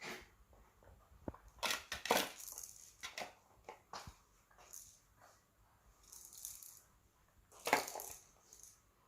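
Baby's plastic rattle toys clicking and rattling in irregular bursts, loudest about two seconds in and again near eight seconds.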